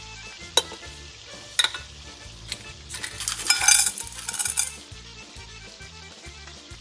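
A few sharp clinks, then a loud hissing, sizzle-like burst lasting about a second and a half, over background music with a steady beat.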